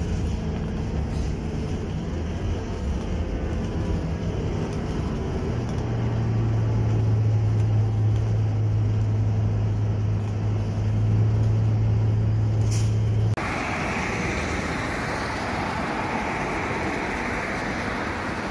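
Engine of a Scania KUB city bus heard from inside the cabin while driving, a low drone that settles into a loud, steady hum about five seconds in. About thirteen seconds in it cuts off suddenly to street traffic noise outdoors at the roadside.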